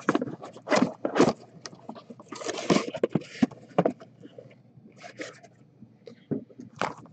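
Cardboard case being opened and shrink-wrapped card boxes slid out of it and stacked: a string of scrapes and short knocks, busiest in the first three seconds.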